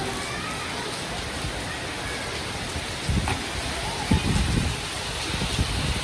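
Steady rain falling, with a few low rumbles in the second half.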